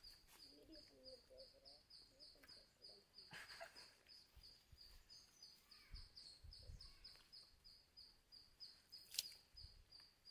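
Near silence: a faint, high chirp repeats steadily about four times a second, with a few soft low bumps in the middle and one sharp click about nine seconds in.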